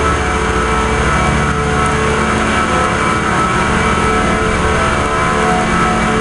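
Steady, loud machinery noise: an even whir with several constant hum tones running through it, with no change in pitch or level.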